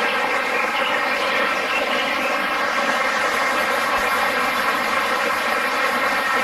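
Steady rush of flowing stream water, an even noise that does not change.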